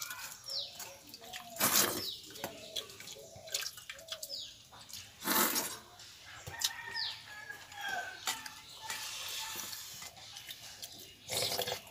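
Domestic chickens clucking and chirping, with short high chirps falling in pitch every second or so. Three brief, louder noisy bursts come about two, five and eleven seconds in.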